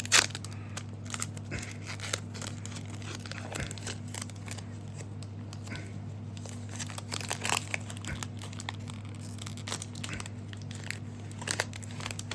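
Trading card booster pack wrapper being torn open and crinkled, with cards being handled: a run of short crackles and rustles, the loudest right at the start, over a steady low hum.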